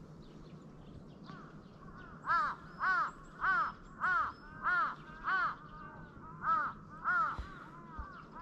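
Crow cawing: a run of about eight caws a little over half a second apart, starting about two seconds in, with a short gap before the last two.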